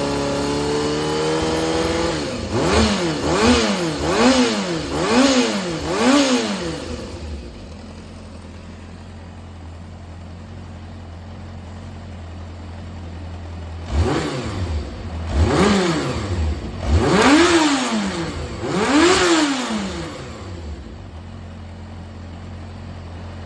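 Yamaha XJR400's inline-four engine running on a start-up check, blipped four times in quick succession, settling back to idle, then blipped four more times about a second and a half apart before dropping back to idle. The engine is running with no abnormal noise, per the seller.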